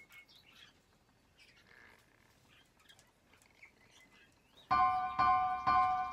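Faint soft chirps and small clicks from a barred parakeet at its seed dish during a gap in the music. Piano music starts near the end and is the loudest sound.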